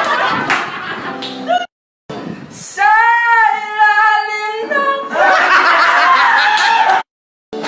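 A young man's voice strains up to one long, high sung note that wobbles in pitch for about two seconds. Before and after it come loud, rough bursts of voices and laughter, each broken off by a sudden cut to silence.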